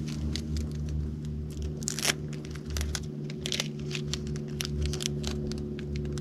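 Steady electric hum of a MotorGuide Xi3 trolling motor, with many irregular sharp clicks and crackles over it, the loudest about two seconds in.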